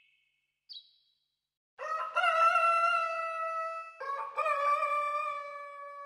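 A short high bird chirp about a second in, then a rooster crowing twice in a row, each crow about two seconds long, the second slightly lower and fading away.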